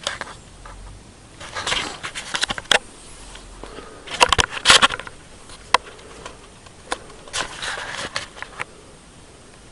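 Close handling noise: three bursts of rustling and scraping, with a few sharp clicks between them.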